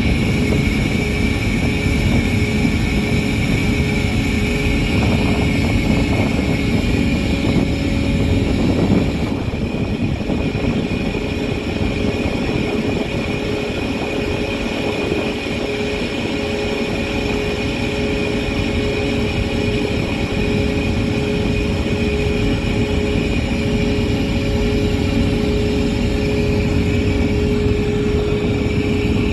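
Steady drone of a car carrier's shipboard machinery with a steady whine over it, dropping a little in level about nine seconds in.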